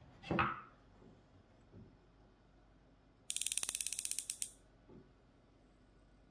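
Caperlan fly reel's ratchet clicking rapidly for about a second as its spool is turned by hand. A knock comes just before, near the start, as the rod and reel are picked up off the table.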